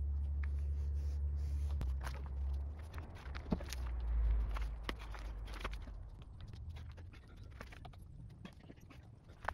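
Scattered clicks, knocks and scuffs of hands working on a truck canopy's edge and bed rail, with footsteps, the sharpest knock about three and a half seconds in. A low rumble underlies the first couple of seconds and dies away.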